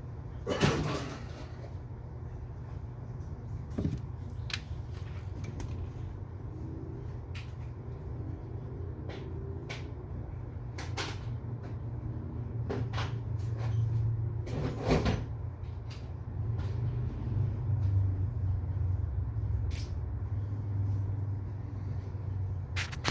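Scattered clicks and knocks of a tool and loose trim parts being handled while the shifter boot ring is unscrewed, over a low steady hum.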